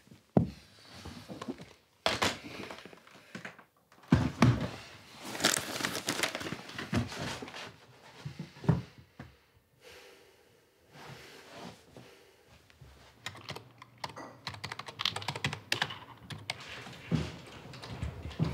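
Several knocks and rustling as papers are pulled out of a wooden cabinet, then quick, continuous typing on a computer keyboard in the last few seconds.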